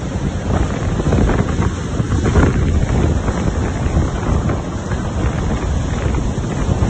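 Strong wind buffeting the microphone in steady gusts, over the rush of rough surf.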